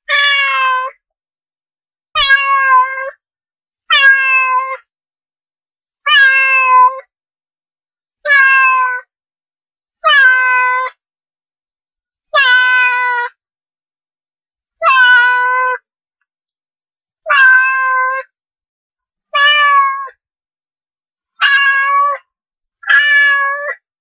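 Domestic cat meowing: twelve separate meows, one about every two seconds, each under a second long with dead silence in between.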